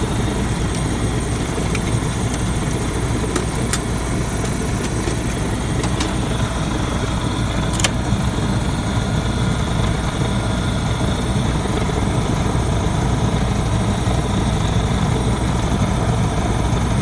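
Waste oil furnace burner running: a steady, even rush of flame and blower air over a low hum, with a few faint clicks in the first half.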